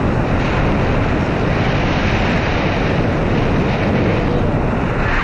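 Steady, loud wind buffeting the action camera's microphone as the airflow of a tandem paraglider flight rushes past.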